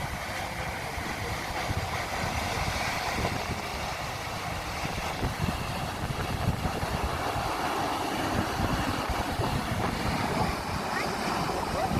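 Waterfall: steady rushing of falling water, with gusts of wind buffeting the microphone.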